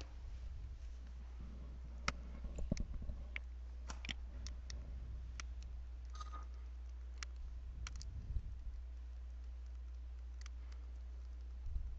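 Computer mouse clicking: scattered, irregular sharp clicks, bunched between about two and five seconds in and again around eight seconds, over a steady low hum.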